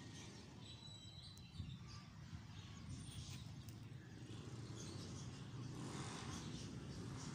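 Faint outdoor ambience: a steady low rumble, with a few brief, high bird chirps in the first couple of seconds.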